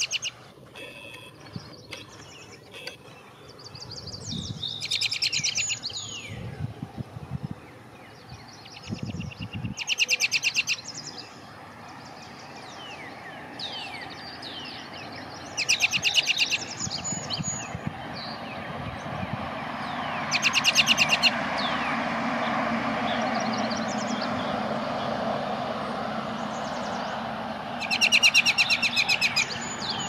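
American robin singing in short loud phrases, one every five or six seconds, with fainter bird chirps between them. A steady low background noise builds through the second half.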